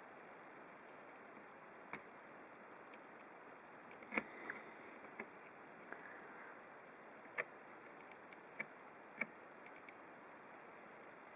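Scattered small clicks and taps over a faint steady hiss: the metal tips of a soldering iron and a prying pin touching a surface-mount microswitch on a laptop mainboard during desoldering. The sharpest tap comes about four seconds in, with a few more near the end.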